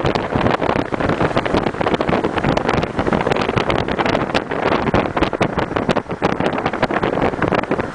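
Wind from a moving car's passage buffeting the microphone: a dense rushing noise full of rapid crackling pops, over the car's road noise.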